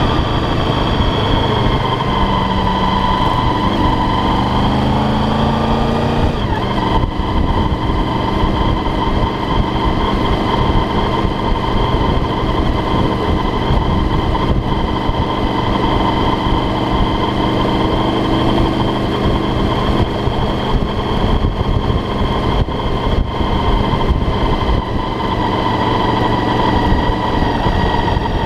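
Motorcycle engine running steadily under way, mixed with a low rush of wind on the microphone. The engine's pitch wavers early on, shifts about six seconds in, then holds steady.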